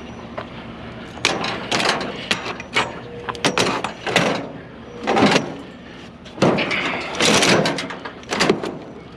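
Curbside items being loaded and shifted on a trailer: a run of clattering knocks and scrapes, starting about a second in and stopping near the end.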